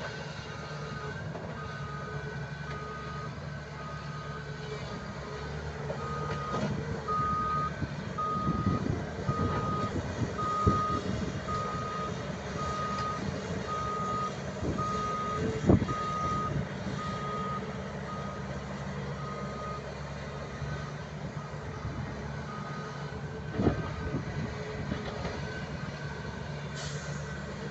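Heavy-machine backup alarm beeping about once a second over a running diesel engine; the beeping stops about two-thirds of the way through. Several heavy thumps and knocks come in between, the loudest about halfway through.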